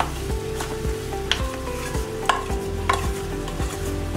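A metal spatula taps and scrapes against a kadhai a few times, about a second apart, as grated jaggery is knocked off it into coconut cooking in ghee, over a low steady sizzle from the pan.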